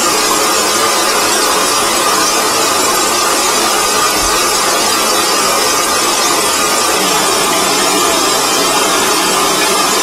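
Chrome shower head spraying water, a steady, even hiss.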